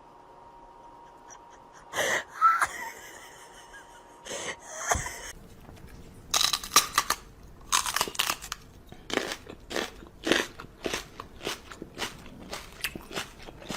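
Crunchy chewing: a run of sharp, irregular crunches, about two or three a second, through the second half. Two louder sounds come first, about two and five seconds in.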